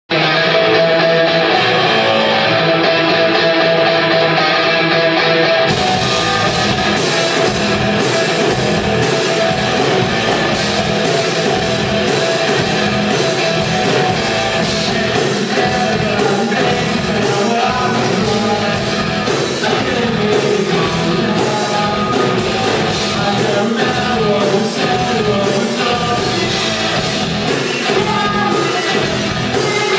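Rock band playing live, with electric guitar and singing. Drums and cymbals come in about six seconds in, filling out the sound.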